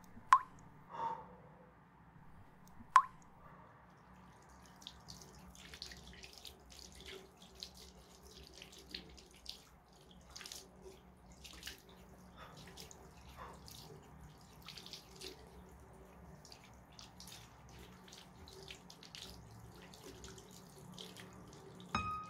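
Water drops dripping: two loud single drops, each with a short ringing pitch, then a long run of faint, irregular quick drips.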